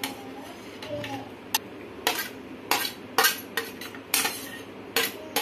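Steel spoon scraping and tapping against a stainless steel plate as grated coconut is pushed off it into a steel mixer jar: a string of irregular, sharp metal clinks and short scrapes, several a second at times.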